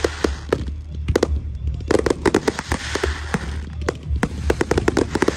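Fireworks display: rapid, irregular bangs from bursting shells and salutes, with a crackling hiss swelling about two seconds in.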